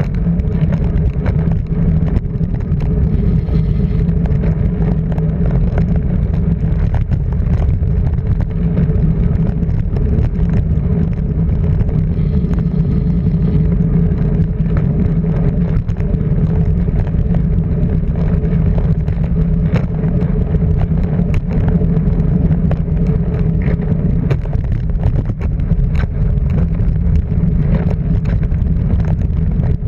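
Car driving at a steady pace: engine running at an even pitch under road noise, with faint scattered clicks.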